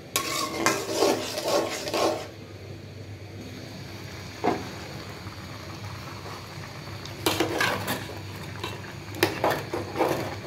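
A metal spoon clattering and scraping against metal cooking pots in bursts: at the start, again after about seven seconds, and near the end as it stirs a pot of tomato sauce. A low steady hum fills the quieter stretch in the middle.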